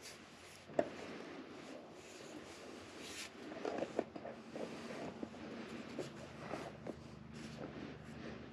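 Wooden purlin boards being handled: light knocks, taps and scraping of lumber against lumber as hands grip and shift the boards, with one sharper knock about a second in.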